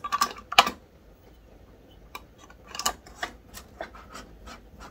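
Metal canning lids and screw bands clicking and scraping against glass canning jars as the bands are screwed on by hand: scattered sharp clicks, two louder ones at the start, then a brief lull.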